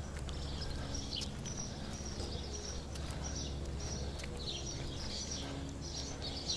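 Small birds chirping on and off over a steady low rumble, with soft footsteps on grass and pavement.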